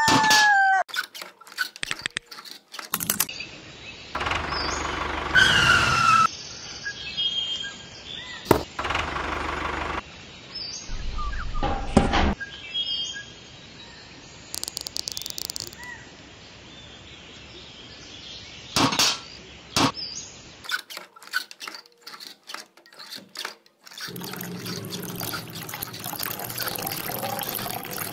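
A string of short clicks and knocks as a miniature toy hand pump is handled, with a few chirps, then water pouring from the pump's spout into a small metal bucket for the last few seconds.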